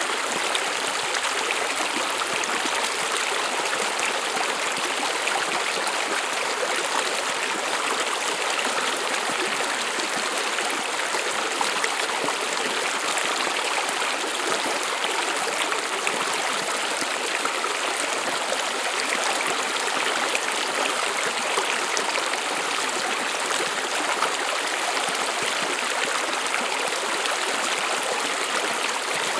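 A stream of water running and babbling over stones, with a steady rushing sound.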